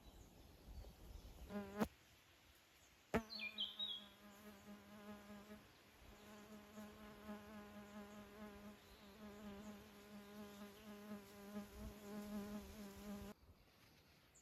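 A flying insect buzzing steadily, one low buzz with wavering overtones, broken by two sharp clicks and cutting off suddenly near the end.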